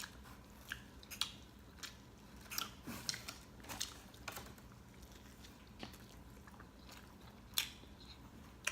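A person chewing a mouthful of steak and cheese sub, with irregular mouth clicks and smacks. The loudest comes near the end.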